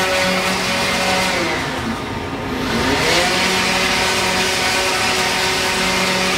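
Electric power sander running steadily with a shop dust collector, working down a wooden longbow tenon. Its motor pitch sags briefly about two and a half seconds in and then comes back up.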